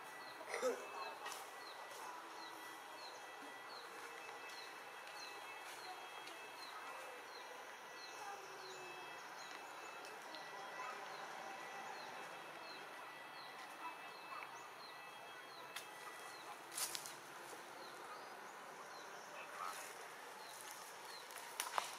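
Outdoor forest ambience: a high, even chirp repeats about twice a second and stops about two-thirds of the way through, over a steady background hiss, with a few brief sharp clicks.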